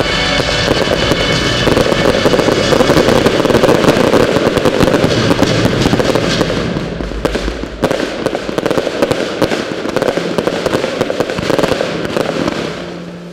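Fireworks display going off in a dense, continuous crackle of many small pops and bursts, thinning and fading over the last few seconds, with music playing underneath.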